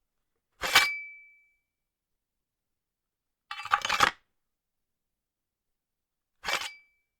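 Three separate sword sound effects: a sharp metal blade clash with a thin ringing tone that fades over about half a second, then a rough scraping clash of several quick hits, then a shorter clash with a brief ring near the end.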